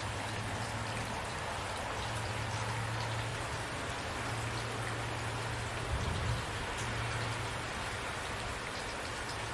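Steady rain falling, with scattered drops ticking on a surface over a low, steady hum. A brief low thud comes about six seconds in.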